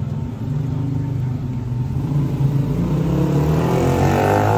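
A motor vehicle's engine running and accelerating, its pitch rising through the second half.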